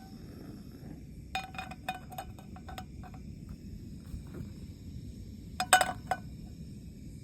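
Two bursts of light clinks from small hard objects knocking together, each with a brief ringing pitch: a scattered run, then a louder cluster near the end. They sit over a steady low rumble and a faint high, steady hum.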